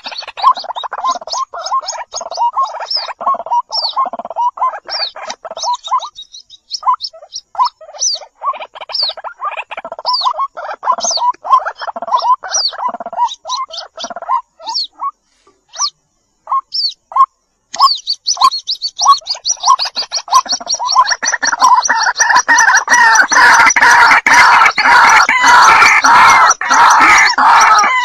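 White-breasted waterhen chicks calling in rapid runs of short chirps. About two thirds of the way through there is a brief lull, then the calls come back as a faster, denser and louder chorus.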